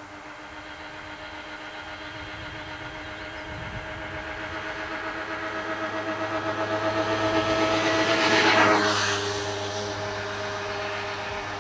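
A vehicle approaching and passing by: its steady, pulsing drone grows louder to a peak about eight and a half seconds in, drops in pitch as it passes, then fades slowly.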